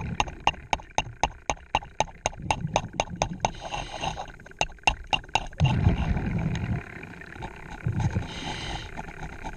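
Scuba diver's breathing underwater: low rumbling surges of exhaled bubbles and short hisses of the regulator on each breath in. A fast, even clicking of about six clicks a second runs through the first half.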